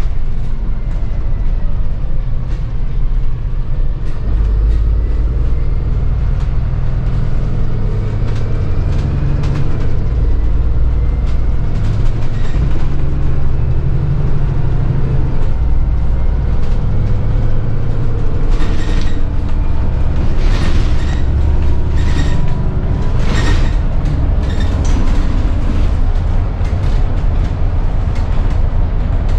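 Cabin noise of a Scania Fencer F1 bus on the move: a loud low rumble, with a faint whine rising and falling early on. There are bursts of sharp rattling clicks, clearest in a run from about two-thirds through; the rattle is from a loose drop-down fuse box panel.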